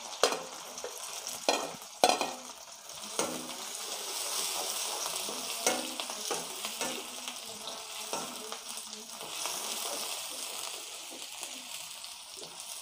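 Chopped onions and green chillies sizzling in hot oil in a kadhai, stirred with a steel spatula that scrapes and knocks against the pan now and then.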